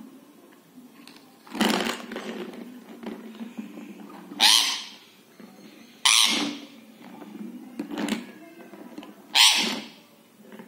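Rose-ringed parakeet giving five short, harsh screeches, each a second or two apart and fading quickly, over a faint steady hum.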